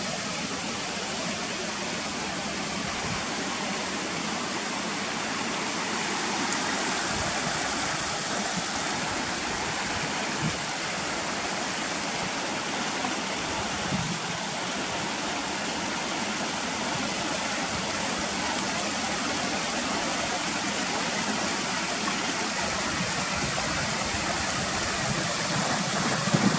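Steady rush of a mountain stream running over rocks, with a few brief knocks on top.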